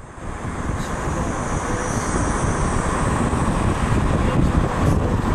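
Wind rushing over the microphone and the low rumble of a moving vehicle, rising in level over the first second or so, then steady.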